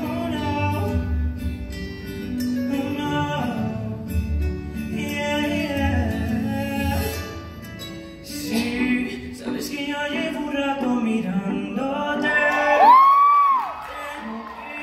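A man singing into a microphone over a backing track with a low steady beat. About thirteen seconds in he holds a loud high note that rises and falls, and the backing drops out just after.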